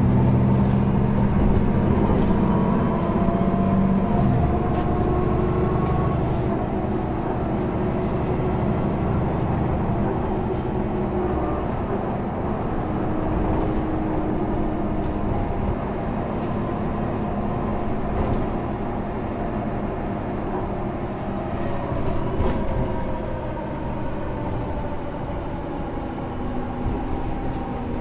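Solaris Urbino 18 articulated diesel city bus with a Voith automatic gearbox running through a stretch of its route. The engine and driveline note drifts up and down with speed and is loudest in the first few seconds, with a few light clicks and knocks.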